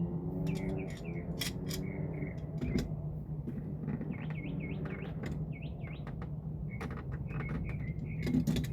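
Birds chirping in quick series of short repeated chirps, in several bouts. Under them runs a steady low hum, with scattered sharp clicks.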